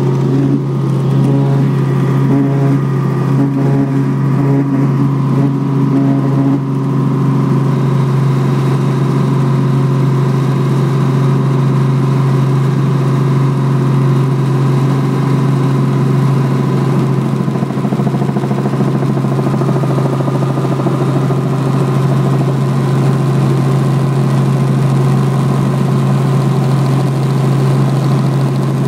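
Robinson R44 Raven helicopter in flight, heard from inside the cabin: a loud, steady drone of rotor and piston engine with a strong low hum.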